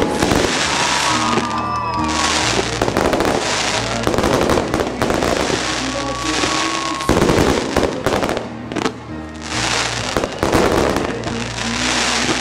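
Fireworks bursting and crackling in dense, rapid succession, over music playing underneath.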